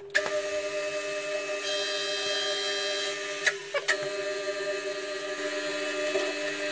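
Milling machine motor switched on with a click, then running with a steady mechanical hum. About three and a half seconds in, two clicks come from the rotary reverse switch lever being thrown, and the hum briefly falters between them before running on.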